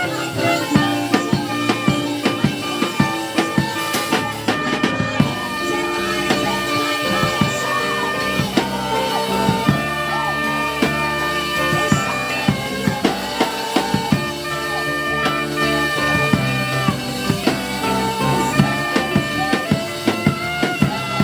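A live gospel band plays an instrumental passage: a drum kit keeps a steady beat under long held chords.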